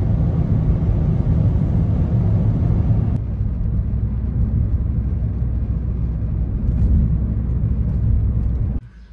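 Steady road and engine rumble inside a moving car's cabin at speed. About three seconds in it abruptly changes to a duller, less hissy rumble, where one driving clip cuts to another.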